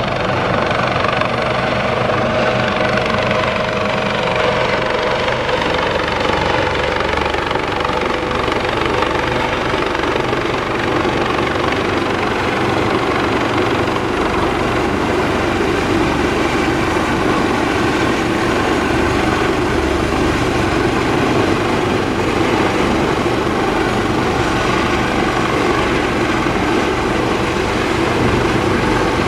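Helicopter flying, its rotor and engine running steadily.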